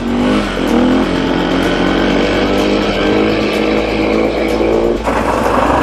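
KTM 500 EXC single-cylinder four-stroke enduro engine pulling hard under throttle. The revs climb, drop at a gear change about a second in, then rise slowly again before the rider eases off near the end.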